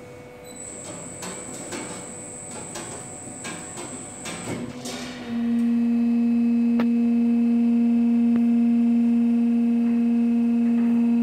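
A saw blade tensioning machine: light metallic clicks and knocks as the gang saw blade and levers are worked, over a faint high whine. About five seconds in, the machine's drive motor comes on and hums loudly and steadily to the end.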